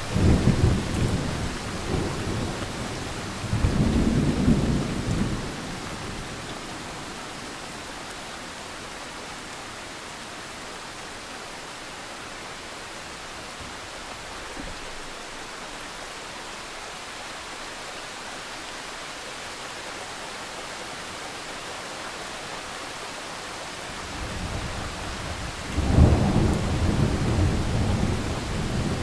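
Thunder rolling over steady rain. Two low rolls come in the first five seconds or so, then only the hiss of rain for a long stretch, and then a longer, louder roll builds near the end.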